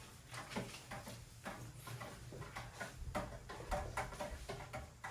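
A series of light, irregular clicks and knocks of small objects being handled, such as mugs, spoons and packets during hot-chocolate making.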